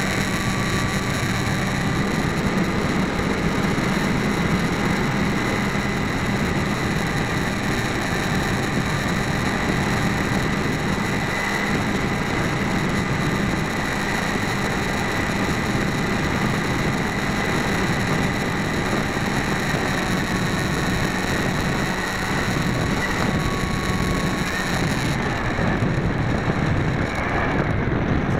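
Mini Skywalker RC plane's electric motor and propeller whining steadily, with wind rushing over the onboard camera's microphone. The whine fades out about 24 seconds in, and a short rising whine comes near the end.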